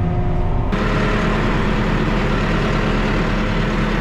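Case Vestrum forestry tractor's diesel engine running steadily. About a second in, the sound changes abruptly, with a steadier hum and a wide hiss coming in on top of the engine.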